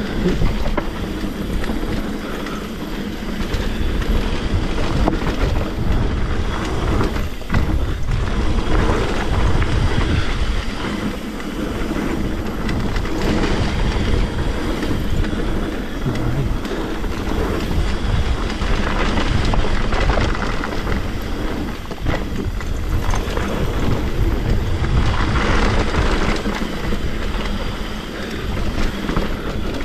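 Trek Remedy 8 full-suspension mountain bike descending a rough trail: steady tyre rumble with the bike's chain and frame rattling. Wind buffets the chest-mounted action camera's microphone throughout.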